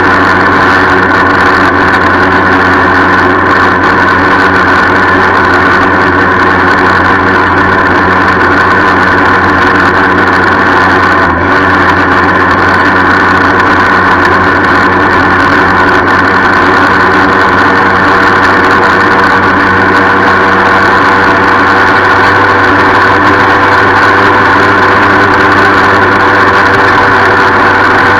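1976 Yamaha FS-1 moped's 49 cc two-stroke single-cylinder engine running steadily under way, loud and close, with the rattle the bike has been making. The sound dips briefly about eleven seconds in.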